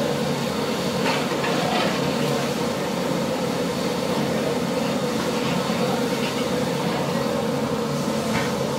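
A steady low kitchen rumble, with a few faint clinks of a long metal ladle stirring thick biryani masala in a large aluminium pot.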